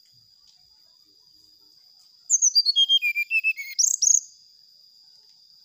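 Brown-chested jungle flycatcher singing one rapid phrase, about two seconds long, a couple of seconds in: a quick run of short whistled notes stepping down in pitch, closed by a sharp upward note.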